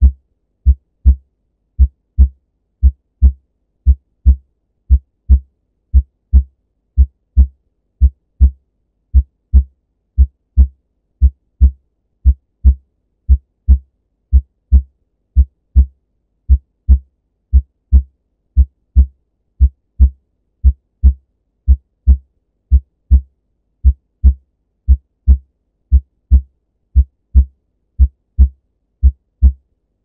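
Normal heart sounds, the first and second heart sounds (lub-dub) of the valves closing, beating as a steady rhythm of low thumps about two a second.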